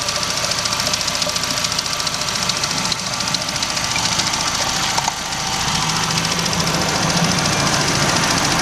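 Classic Mini A-series four-cylinder engine running at idle, with a fast, even ticking.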